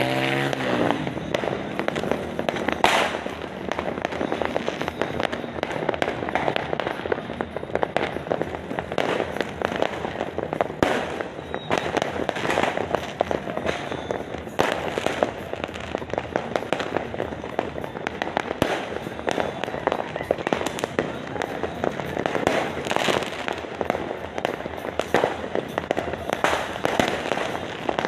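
A dense, unbroken barrage of fireworks and firecrackers going off together, many overlapping cracks and bangs with a few louder bangs standing out.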